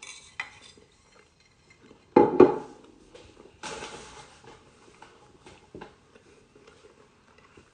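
A plate and utensils clattering as the dish is set down on a table, loudest about two seconds in, with a few lighter knocks around it and a short rustle a little before the middle.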